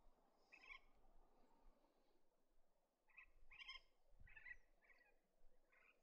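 Faint, short calls from a flock of superb parrots feeding on the ground, about six in all: one near the start, the rest bunched together in the second half.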